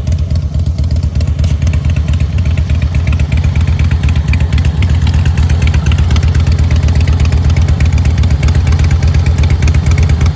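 Harley-Davidson motorcycle engine running steadily, its exhaust a loud, rapid, even low pulsing.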